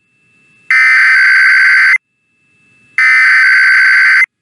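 Emergency Alert System SAME header: loud buzzing digital data bursts, two in a row of about a second and a quarter each, about a second apart. They are the last of the three identical header repetitions that open an EAS alert, here one coding a Required Weekly Test.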